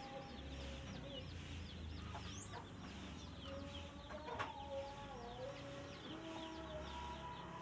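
Faint background of domestic chickens clucking in drawn-out, wavering calls, with small birds chirping quickly and high-pitched throughout. A brief louder call comes about four seconds in.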